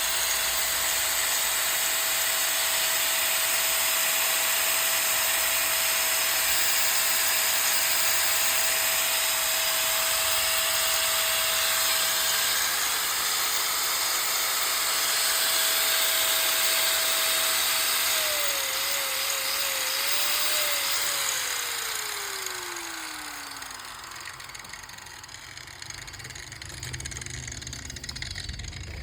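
INCO 960 W 4-inch angle grinder running at a steady speed with a high motor whine. About two-thirds of the way through, its pitch wavers, then falls away as the disc spins down.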